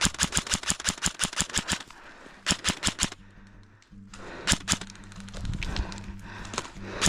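Airsoft gun firing on full auto: a long burst of rapid, evenly spaced shots lasting about two seconds, a shorter burst about two and a half seconds in, and scattered shots after that.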